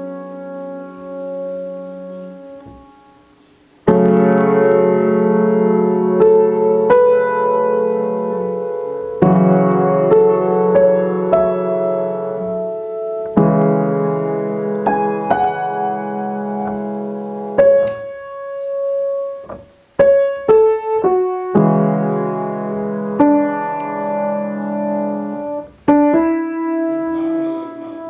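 Solo piano playing slow, sustained chords. The opening chords die away over the first few seconds, then a loud chord comes in about four seconds in and the playing flows on, with a couple of short breaks between phrases.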